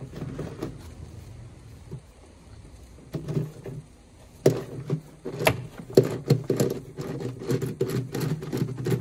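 Small hand ratchet with an external Torx E8 socket clicking in quick strokes as a nut is undone on the engine. The clicking starts about four and a half seconds in and becomes a fast, continuous run.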